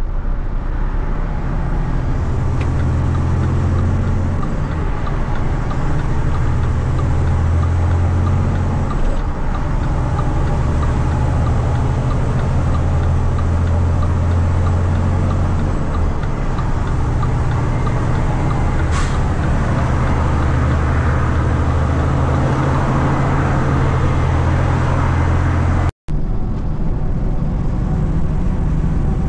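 Diesel truck engine heard from inside the cab while driving: a steady low drone that dips briefly and picks up again a few times. The sound cuts out for an instant near the end.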